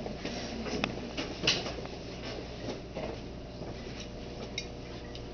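Handling sounds at a lab bench: scattered light clicks and knocks, one louder knock about a second and a half in, over a steady classroom room hum.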